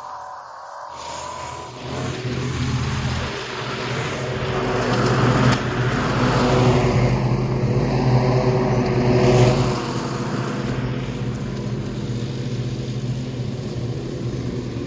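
Ride-on lawn mower engine running under load, growing louder as the machine comes closer, loudest about nine seconds in, then steady.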